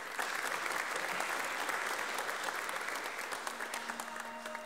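Audience applauding, a dense steady clapping that tapers off slightly toward the end.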